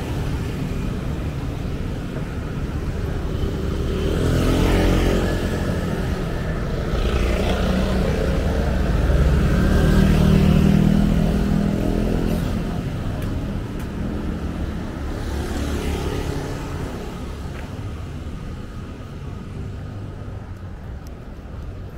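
Street traffic: cars and motorbikes pass one after another over a steady low rumble. The loudest passes come about five seconds in and again around ten to eleven seconds, and the traffic eases toward the end.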